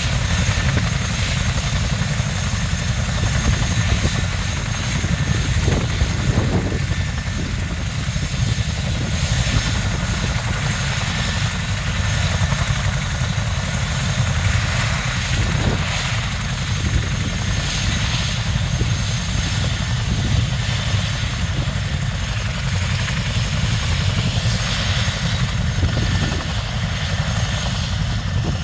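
Boeing CH-47 Chinook on the ground, its tandem rotors turning and twin turboshaft engines running steadily: a dense low beat of the rotor blades under a thin high turbine whine.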